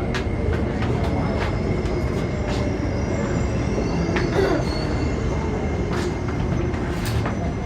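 MTR SP1900 electric train running on the East Rail Line: a steady rumble of wheels on track with a thin steady whine over it and scattered sharp clicks.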